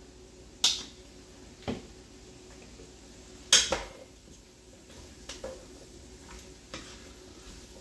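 A few sharp knocks and clinks of a spoon against a cooking pot while diced vegetables are stirred, the loudest about three and a half seconds in.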